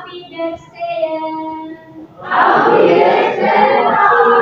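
A woman's voice sings a short chanted call, and about two seconds in a class of students answers loudly all together, shouting and chanting in unison: a call-and-response class greeting.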